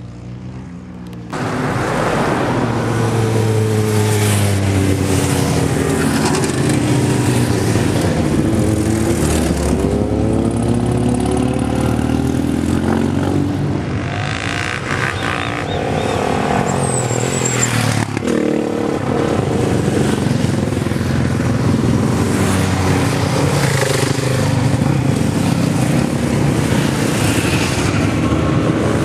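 Racing motorcycle engines revving hard up a hill-climb course, the pitch climbing and dropping with each gear change. It starts suddenly about a second in and stays loud, with a brief dip about two-thirds of the way through.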